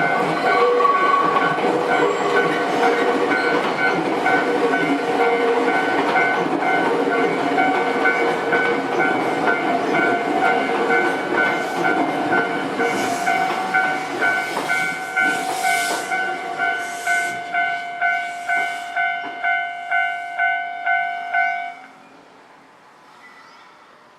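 Japanese railway level-crossing alarm ringing its repeating electronic bell while a Nankai train runs over the crossing. The train noise fades, the bell's pulses stand out, and the alarm cuts off suddenly a couple of seconds before the end.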